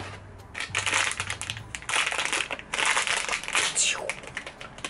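Crinkly blind-box packaging being torn open and handled: a dense run of crackling rustles starting about half a second in.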